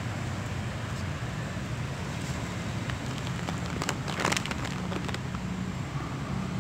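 Steady low street rumble, with a short burst of crinkling plastic about four seconds in as a cat feeds with its head in a plastic bag.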